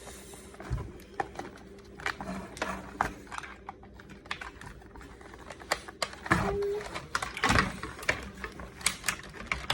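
Plastic toy playset parts being handled and fiddled with: an irregular run of small clicks and taps as a piece is worked at to pop it off.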